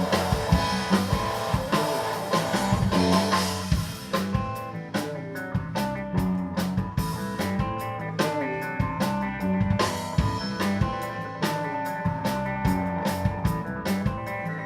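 Instrumental passage of a rock song: guitar over a drum kit with regular beats. About four seconds in the dense high wash drops away, leaving sustained guitar notes over the drum hits.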